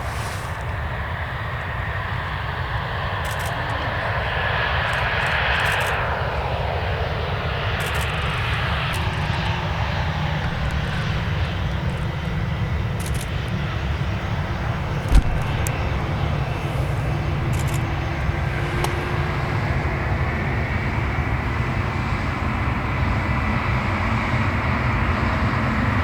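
Airliner engines running, a steady rumble with a faint high whine, growing louder over the first few seconds and then holding. A single sharp thump about halfway through.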